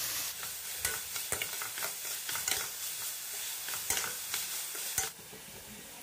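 A spatula stirring chopped vegetables sautéing in oil in a stainless steel frying pan: irregular scrapes and clicks against the pan over a steady sizzle. The stirring stops about five seconds in, leaving the sizzle alone.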